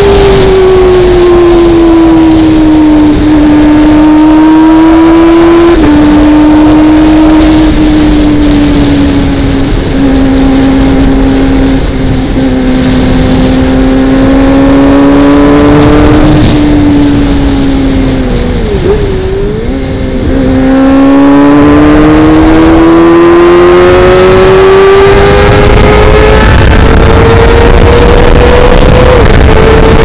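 Kawasaki Ninja ZX-25R's 250 cc inline-four engine through a Best3 aftermarket exhaust, loud and high-revving under way. The pitch sags slowly, steps up suddenly about six seconds in, dips briefly with a drop in loudness about two-thirds through as the revs fall, then climbs steadily as the bike accelerates.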